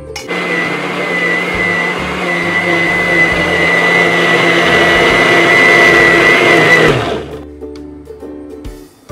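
Preethi mixer grinder running at speed, puréeing cooked ripe jackfruit in its steel jar, with a steady high whine over the motor noise. It winds down and stops about seven seconds in, leaving soft background music.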